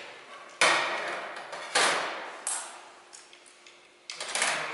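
A few sharp metallic clinks that each ring out briefly, the loudest about half a second in, as metal parts are handled at a workbench. Near the end a cordless drill-driver starts whirring again.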